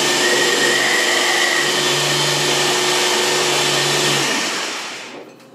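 Electric blender with a press-down motor head running steadily, blending mango, spices and canned tomatoes into a sauce. A little over four seconds in the motor is released and winds down, fading out over about a second.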